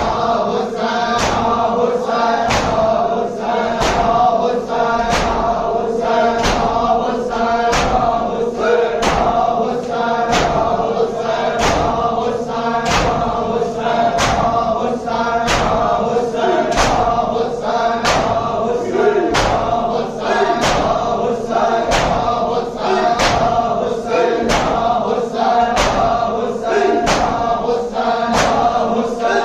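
A group of male voices chanting a mourning lament (noha) in unison over a sharp, even beat, about three beats every two seconds.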